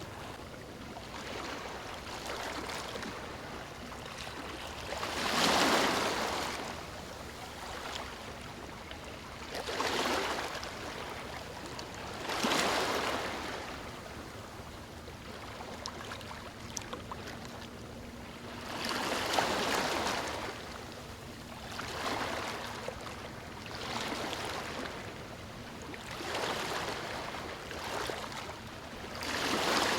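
Ocean waves breaking on a beach, the surf swelling and washing in every few seconds, with the biggest breakers about five seconds in and again near twenty seconds.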